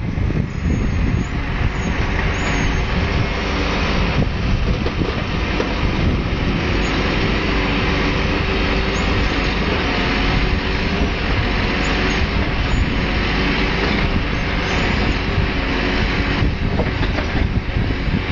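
Volvo timber lorry's diesel engine running steadily, its sound shifting slightly about four seconds in and again near the end.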